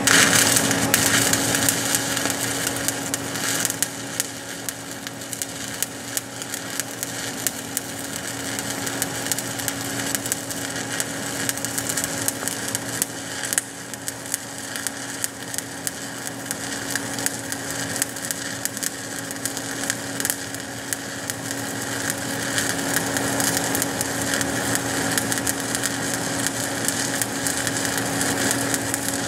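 Stick welding arc from a 7018 electrode at 110 amps running a stringer cover pass on steel pipe: a steady crackle and sizzle of fine pops, with a steady low hum underneath.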